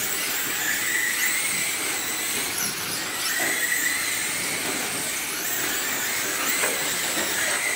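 Several radio-controlled race cars running laps, their motors making a steady high whine that drifts slightly in pitch as they speed up and slow down.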